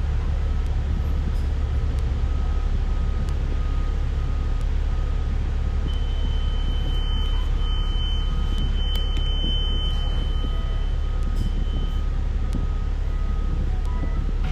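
Steady low engine and road rumble inside a moving city bus. A thin, high steady tone sounds for several seconds around the middle.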